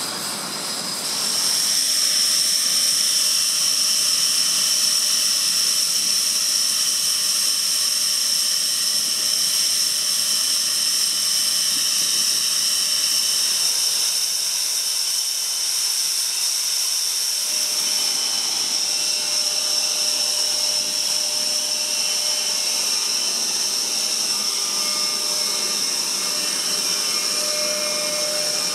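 Panavia Tornado's jet turbines running at idle: a steady, loud, high-pitched whine over a rushing noise, growing louder about a second and a half in and then holding level.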